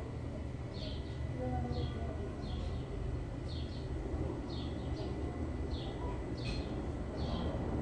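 A bird chirping over and over, a short falling chirp about once a second, over a steady low background rumble.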